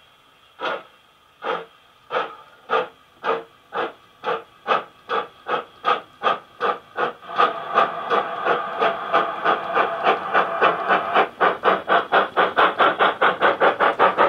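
Model steam locomotive's LokSound digital sound decoder playing a GWR Hall class 4-6-0 sound file through a megabass speaker in the tender: exhaust chuffs start slow and quicken steadily as the engine pulls away, reaching about three or four beats a second by the end. About halfway through, a steady hiss of steam rises under the beats.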